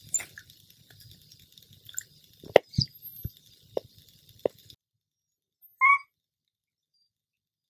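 A small dog gives one short, high begging whine about six seconds in. A few sharp clicks come a little earlier.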